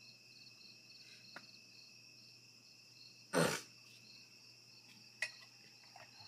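Crickets chirping in a steady chorus, a fast pulsing trill over a thinner steady high tone. A short, loud burst of noise breaks in about three and a half seconds in.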